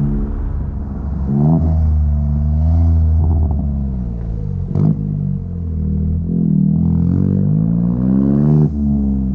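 Chevrolet Onix RS's 1.0 turbo three-cylinder engine running through an aftermarket sport exhaust with a Luzian LA011 intermediate muffler, its pitch rising and falling several times as the throttle is opened and eased off. There is a brief knock about five seconds in, and the note drops sharply near the end as the throttle is released.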